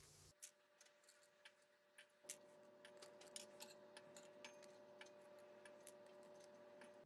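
Faint, scattered clinks of ice cubes being picked out of a plastic ice-cube tray with metal tongs and dropped into wine glasses.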